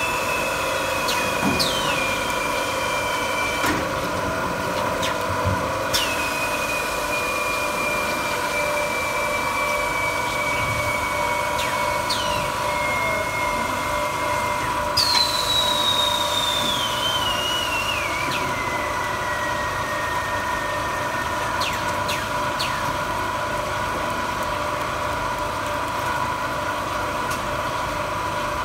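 A 5-layer 1500 mm cast stretch film line running: a steady mechanical hum with several constant tones. Every few seconds a high whine starts with a sharp click and slides down in pitch over several seconds.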